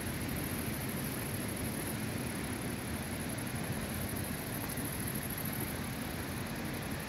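Steady outdoor noise: wind rumbling unevenly on the microphone, with a constant high-pitched hiss above it.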